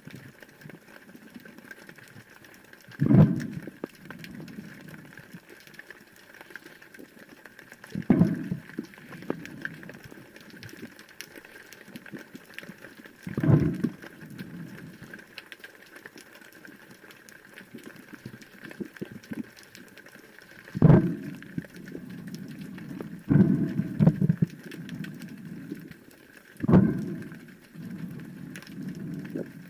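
Underwater sound picked up by a spearfisher's camera: a low watery hiss with a loud bubbling, gurgling burst every few seconds, two of them close together a little past two-thirds of the way through.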